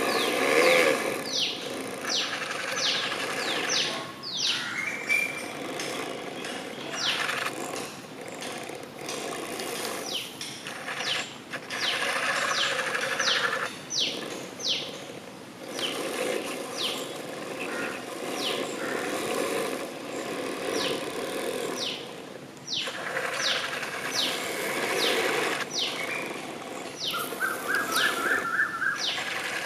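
A 3D-printed 1/16-scale model excavator's hydraulic pump runs with a steady mechanical whir that swells and fades every few seconds as the boom and bucket move. Birds chirp over it throughout in quick, falling notes, and a short run of rising notes comes near the end.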